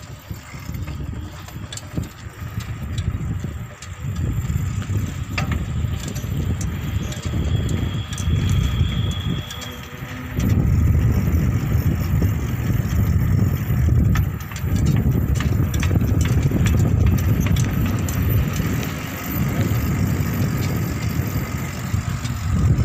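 Wind buffeting the microphone of a camera carried on a moving bicycle: an uneven low rumble that rises and falls and grows louder about halfway through.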